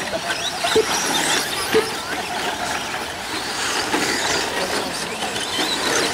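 Electric radio-controlled short-course trucks racing on a dirt track, their motors whining up and down in pitch as the throttle comes on and off. Two sharp knocks come about one and two seconds in.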